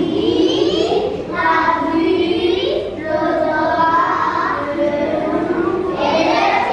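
A group of young children singing a song together, in phrases of a second or two with brief breaks between them.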